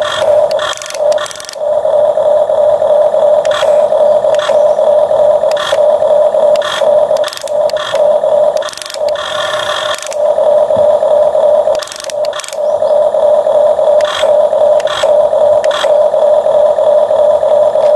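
Small electric gear motor of a toy excavator whining steadily at one pitch, with frequent clicks and scrapes as it works sand, dipping briefly now and then.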